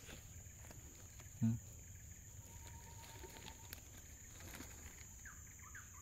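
Quiet tropical forest ambience: a steady high-pitched insect drone, with one short voice sound about a second and a half in and a few faint bird chirps near the end.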